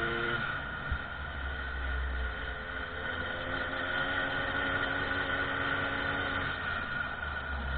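Small moped engine running at speed, with wind buffeting the microphone. The engine's rising pitch drops out about half a second in, and a steady engine tone then holds under the wind noise.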